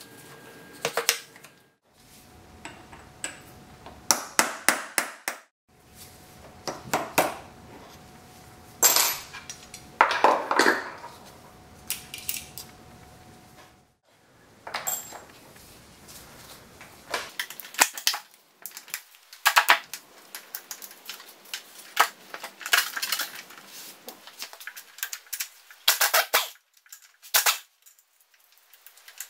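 Metal tools, sockets and bolts clinking and clicking against a Borg-Warner T56 transmission as it is taken apart by hand, in irregular clusters of sharp knocks with a few quick runs of clicks.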